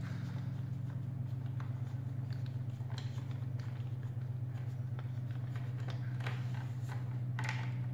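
Screwdriver working the Phillips screws of a motorcycle's shock-bolt locking piece, with scattered light metal clicks and scrapes over a steady low hum.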